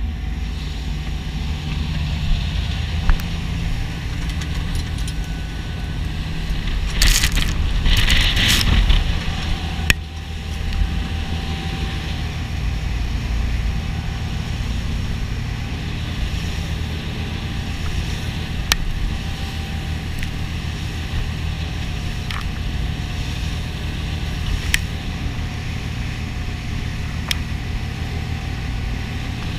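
A pilot boat's engines driving it at speed through choppy water: a steady low drone under the rush of the hull and spray, with a loud burst of rushing noise about seven seconds in that lasts about two seconds, and a few sharp knocks.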